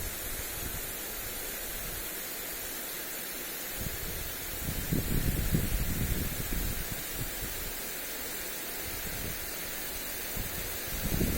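Water spray from a lawn sprinkler hissing steadily onto grass, with wind gusts buffeting the microphone about halfway through and again near the end.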